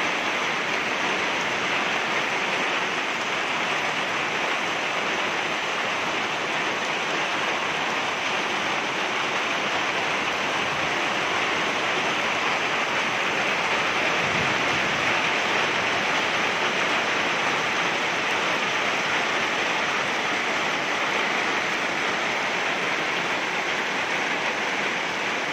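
Steady rain falling on a wet paved yard, an even hiss with no let-up.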